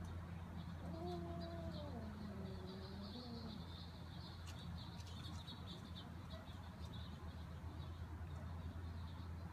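A domestic cat's single long meow, starting about a second in and lasting about two and a half seconds, falling in pitch and then wavering, over a steady low hum.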